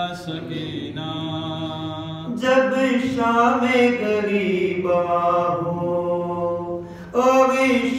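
A man's solo unaccompanied voice chanting a marsiya, a mourning elegy, in long held melodic notes. There are brief breaks between phrases about two seconds in and near the end.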